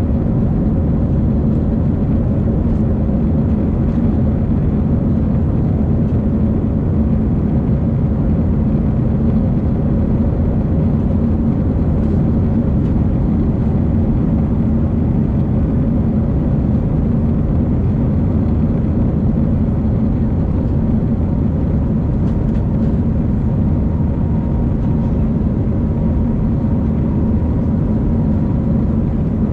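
Airbus A319 cabin noise during the climb after takeoff: a loud, steady engine and airflow rumble heard from a window seat over the wing, with a faint steady whine on top.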